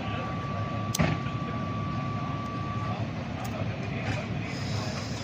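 Fire engine idling with a steady low rumble. A steady high-pitched tone sounds for about three seconds, with a sharp click about a second in.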